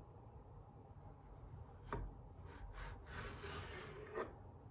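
Knife slicing a zucchini into thin slices on a wooden cutting board, faint, with the blade knocking on the board about two seconds in and again near the end after a stretch of soft cutting.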